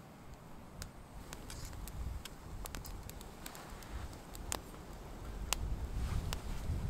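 Wood campfire crackling, with irregular sharp pops and snaps, over a low rumble that grows louder toward the end.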